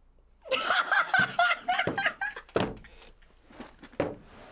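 A teenage boy's high-pitched laughter, with several sharp thumps mixed in, the last about four seconds in.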